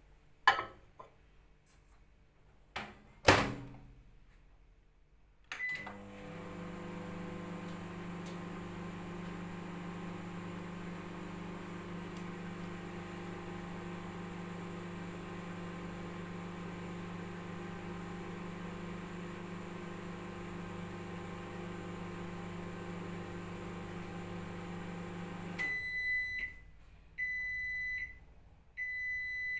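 Microwave oven in use. Two sharp knocks come in the first few seconds, then a short keypad beep, and the oven runs with a steady hum for about twenty seconds. The hum stops and three long beeps signal that the heating cycle is done.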